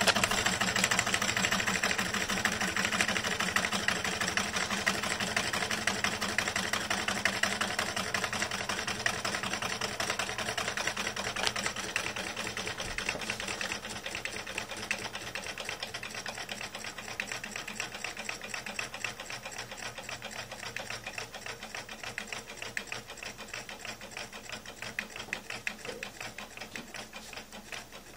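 Small candle-heated Stirling engine running with a fast, even mechanical clatter of ticks that grows steadily quieter.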